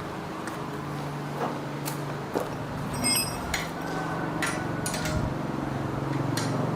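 Metal parts and hand tools clinking and knocking during work on an old bicycle, with a short metallic ring about three seconds in, over a steady low hum.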